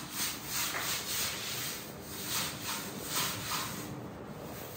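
A broom sweeping with repeated brushing strokes, about two a second.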